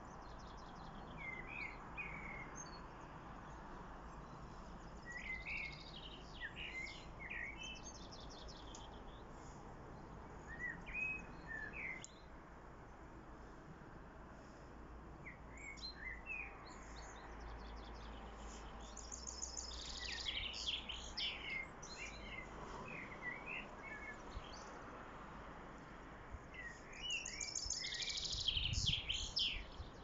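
Common blackbird singing: phrases of low fluty warbling, several ending in high twittering, come every few seconds over steady background noise. The song is loudest near the end.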